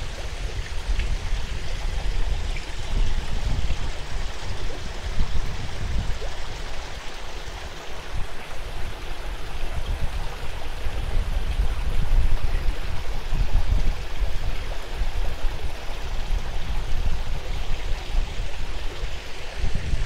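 Small garden waterfall pouring into a koi pond, a steady splashing trickle, with strong wind buffeting the microphone in uneven gusts.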